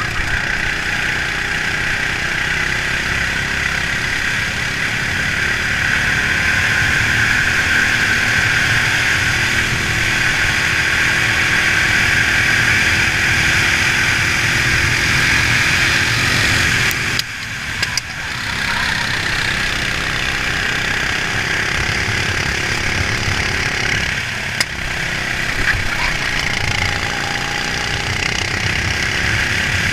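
Racing kart engine running at speed, heard up close from the kart itself. The sound dips briefly twice, once a little past halfway and again about three quarters of the way through, then picks back up.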